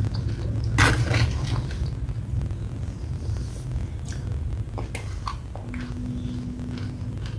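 Close-up mouth sounds of eating a wet red clay paste off a metal spoon: lip smacks and sticky clicks, loudest about a second in, over a steady low rumble, with a short steady hum near the end.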